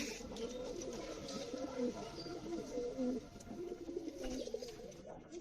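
Several pigeons cooing at once, their low warbling coos overlapping continuously, with a few faint clicks of movement.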